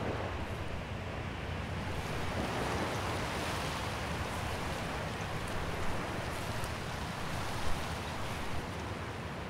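Sea surf and wind: a steady rush of noise that swells a little a few seconds in, with a couple of brief knocks near the end.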